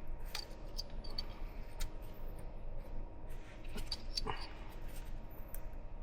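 Sparse light clicks and taps of hands handling plastic ignition coils and their connector wiring, over a faint steady low hum.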